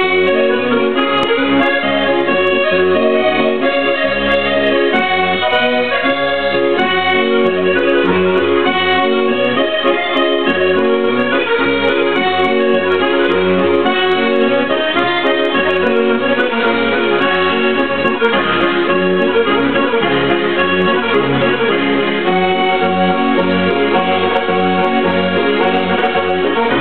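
Diatonic button accordion (Sardinian organetto) playing a Sardinian dance tune without a break: a continuous melody over a bass that pulses on and off.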